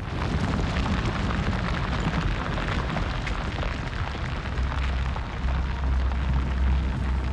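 Pyroclastic flow of hot ash and rock rushing down the volcano: a dense, continuous rushing rumble that starts abruptly, with a deep low rumble growing strong about halfway through.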